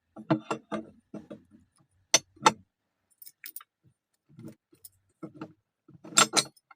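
Metal clicks, clinks and knocks from a heavy steel clutch-and-brake pedal lock being handled and worked with its key. Louder knocks come about two seconds in and again near the end.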